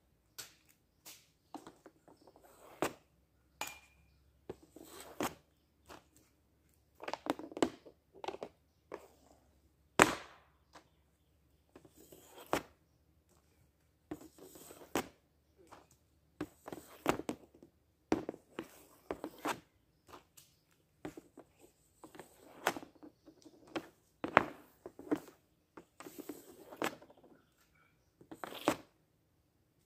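Ice hockey stick snapping pucks off a homemade plastic shooting pad, shot after shot: sharp clacks of blade and puck on the pad every two to three seconds, with smaller scrapes and taps as pucks are pulled from the pile. The loudest clack comes about a third of the way in.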